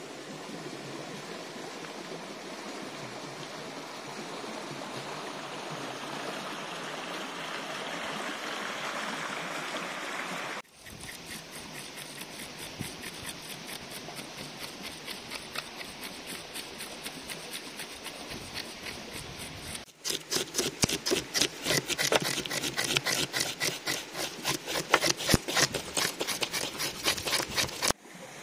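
A small stream running steadily, then a knife scraping along whole fish in quick, even strokes. From about twenty seconds in, louder quick rhythmic grinding of a stone roller worked back and forth on a flat grinding stone (ammikkal).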